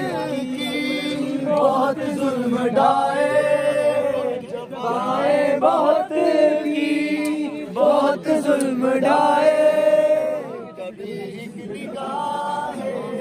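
A group of young men singing a song together, unaccompanied, in long held notes.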